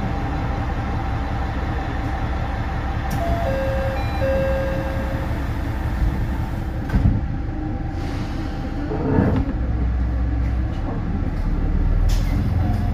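KiHa 350 diesel railcar's engine running at idle with the train standing at a station, with a few short steady tones and a couple of knocks partway through. Near the end the low engine note grows louder as the railcar begins to move off.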